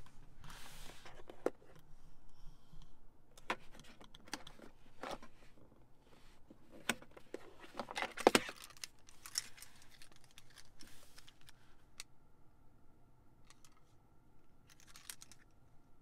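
A Honda key fob and its key ring clinking and rattling against the hard plastic storage tray under a car's center console as a hand picks them up, with scattered clicks and taps; the loudest clatter comes about eight seconds in.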